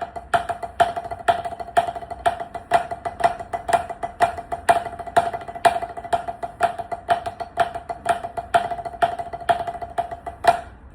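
Drumsticks on a drum playing a warm-up of Swiss Army triplets, paradiddle-diddles and tap strokes: even strokes with louder accents about twice a second over a steady ring from the drum. It stops with a final stroke near the end.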